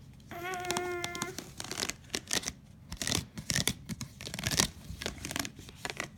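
A short steady pitched hum about a second long near the start. It is followed by an irregular run of clicks, rustles and crinkling from something being handled.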